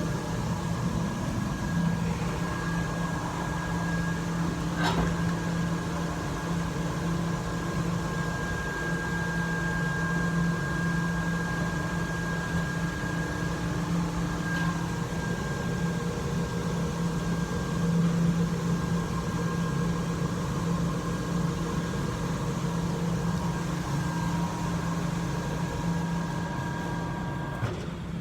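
Steady mechanical hum with several constant tones, like a motor running, with a single click about five seconds in; the hum cuts off shortly before the end.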